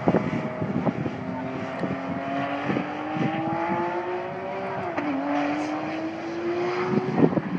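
A Ferrari engine pulling under acceleration, its note climbing steadily, dipping briefly about five seconds in, then climbing again. Wind buffets the microphone throughout.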